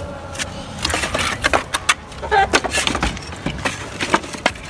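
Irregular wooden knocks and clatter as an old wooden chicken-coop door is pushed shut and wooden planks are handled against it.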